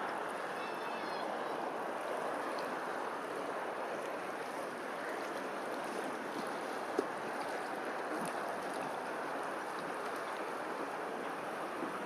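Steady rush of running water, like a stream, with a faint short bird chirp about a second in and a single brief click about seven seconds in.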